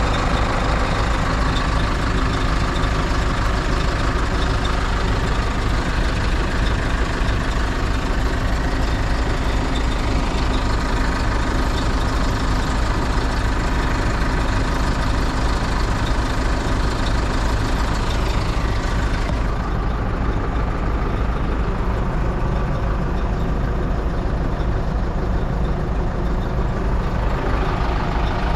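Diesel engine of a 2004 New Holland LB90B loader backhoe running steadily. About two-thirds of the way through, the high hiss drops away and the sound turns duller.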